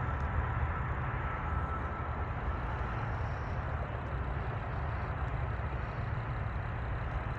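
Steady low rumble and hiss of outdoor background noise, with a faint thin whine that fades out about three seconds in.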